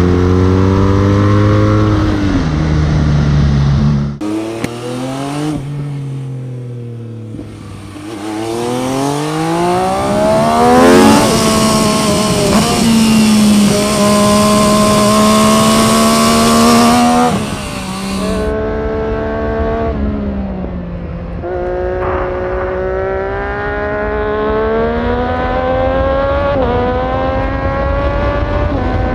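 Motorcycle engines recorded onboard, in three clips one after another. First a BMW boxer twin runs for a few seconds. Then an MV Agusta F3 675 inline-three slows and revs back up to high rpm, with heavy wind noise. Then another sport bike accelerates up through the gears, its pitch climbing and dropping at each shift.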